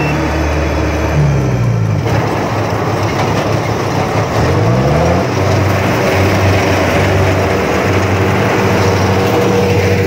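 Crawler-track rice combine harvester running close by, its engine note sweeping down about a second in, then dipping and rising again around four to five seconds in before settling into a steady run.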